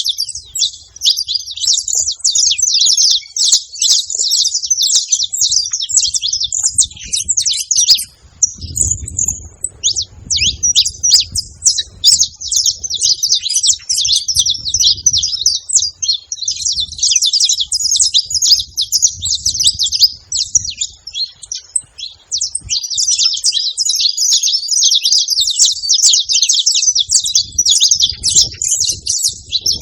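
Saffron finches chirping in a dense, unbroken chatter of quick high notes, with a short lull about eight seconds in.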